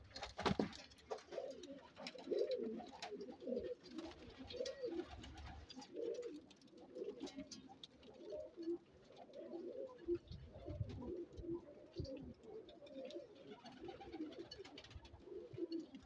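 Several pigeons cooing, their low, wavering coos overlapping continuously. A sharp knock sounds about half a second in, and low rumbles come and go near the middle.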